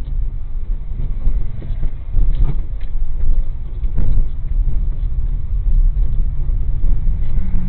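Car's engine and road rumble heard from inside the cabin on a dashcam while driving slowly, a steady low rumble with a couple of short knocks in the middle.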